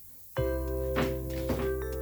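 Background music: after a brief near-quiet moment, sustained chords with struck, bell-like notes begin about half a second in.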